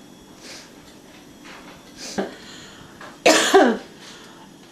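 A person coughing: a short cough about two seconds in, then a louder cough about three seconds in whose voice falls in pitch as it trails off.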